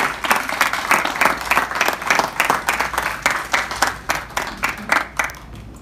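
Guests applauding, a fast patter of hand claps that dies away near the end.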